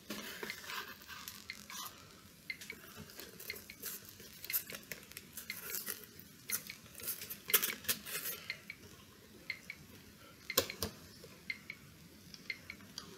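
Fingers clicking and rattling among the jumper wires and chips of a solderless breadboard, with irregular light clatter and sharper clicks about halfway through and near the end. The circuit is being fiddled with because the breadboard prototype will not start reliably.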